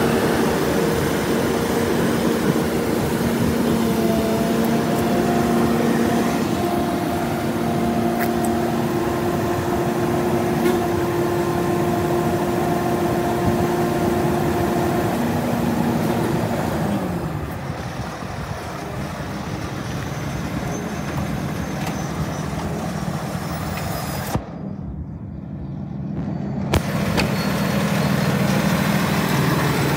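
Diesel engine of an Altec bucket truck running, with a steady whine over it that drops in pitch about halfway through and then runs steady at a lower speed.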